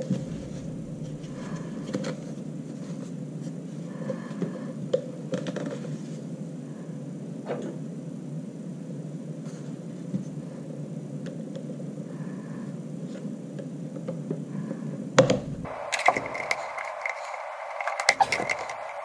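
Small screwdriver prying and scraping at the plastic seam of a Dyson V6 cyclone housing, with scattered clicks and snaps of plastic clips that come thicker near the end, over a steady background noise.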